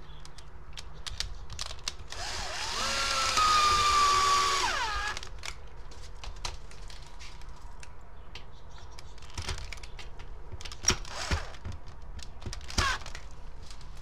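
Cordless drill driving a screw into the plastic fan housing: the motor whines for about three seconds, rising to a steady pitch, then winds down as it stops. A few sharp clicks and knocks follow near the end.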